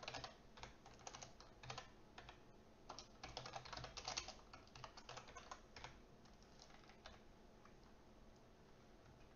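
Faint typing on a computer keyboard, a quick run of keystroke clicks that thins out to a few scattered taps after about six seconds.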